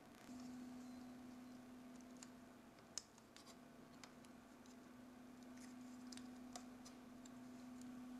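Near silence: a faint steady hum, with a few small clicks and scrapes of plastic model-kit parts being handled.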